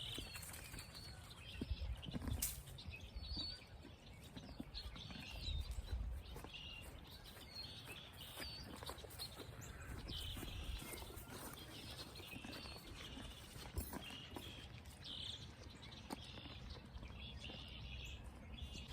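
Small birds chirping on and off, over low thuds and shuffling from horses and a donkey moving about at feed in the mud.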